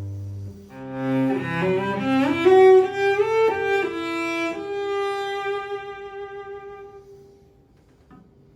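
Bieg cello, Guarneri pattern, bowed: a low note dies away, then a quick run of notes climbs upward, ending on a held higher note that fades out about seven seconds in.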